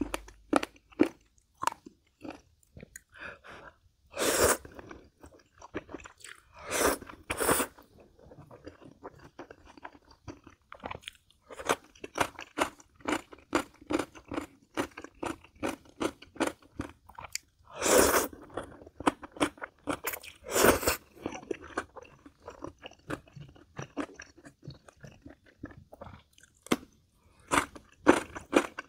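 Close-miked mouth sounds of eating noodles: a steady run of wet chewing and lip-smacking clicks, with five louder, longer slurps, one about 4 seconds in, two around 7 seconds, and two more around 18 and 21 seconds.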